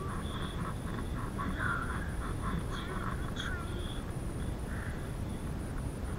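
Bicycle rolling fast on a tarmac path, heard through a bike-mounted camera: a steady low rumble of wind on the microphone and tyre noise, with irregular scratchy rattling bursts.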